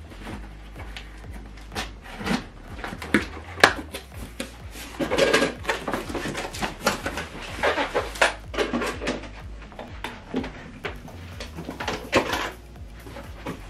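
Cardboard shipping box being opened by hand: a cutter scraping along the top, then the cardboard flaps being pulled open with rustling, scraping and knocking. The sounds come as an irregular run, busiest about halfway through and again near the end.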